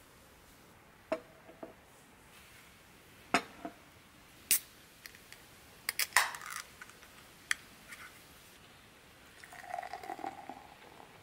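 Aluminium beer can opened by its pull-tab: a sharp crack with a short hiss, after a few light knocks and clicks of handling. Near the end, black beer gurgles and fizzes as it is poured into a glass.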